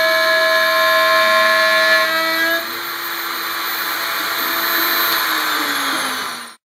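Isel CNC gantry milling machine's spindle running with its end mill cutting aluminium: a steady whine of several pitched tones over cutting noise. About two and a half seconds in the tones drop away and the sound turns quieter and hissier, then a low tone falls in pitch before the sound cuts off suddenly near the end.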